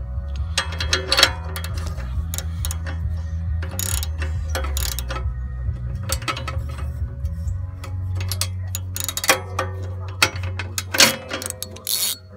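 Socket wrench ratchet clicking in irregular runs, with sharp metal clinks, while the upstream O2 sensor is being loosened from the exhaust. A steady low rumble runs underneath.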